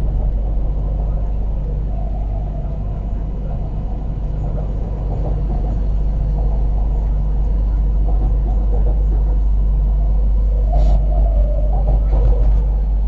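Inside the passenger car of a CRRC Qingdao Sifang-built MTR Q-Train electric multiple unit running on the Kwun Tong line. A steady low rumble of the train underway, growing louder over the second half.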